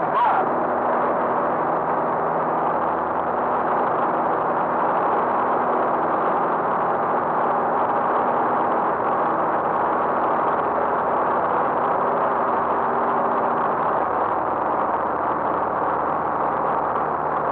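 Light aircraft's engine and propeller running steadily in cruise flight, heard from inside the cockpit as an even drone with a few steady tones over airflow noise.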